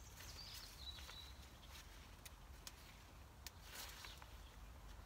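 Faint rustling of leaves with a few small sharp snaps as climbing bean vines on a cane trellis are picked over by hand.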